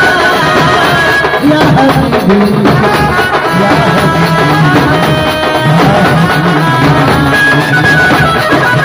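Loud amplified live band music through big speakers: a stepping melody line over a steady beat of hand drums, with no break.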